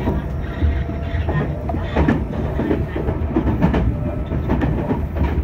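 Meitetsu 2300 series electric train running, heard from inside the leading car: a steady low rumble with irregular clacks as the wheels pass over rail joints and points.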